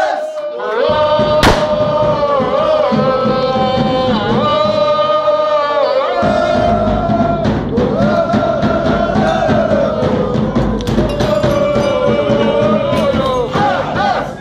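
A group of supporters singing a chant together, loud and in unison, with a single sharp knock about a second and a half in. From about six seconds in a bass drum beats steadily under the singing.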